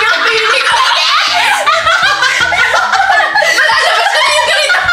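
Three women laughing together, their laughs overlapping with no pause.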